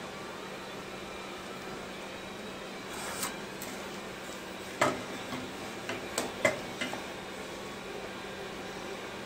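Steady background hum, with a handful of light clicks and knocks in the middle as small marking tools and a wooden board are handled and set down on the saw table.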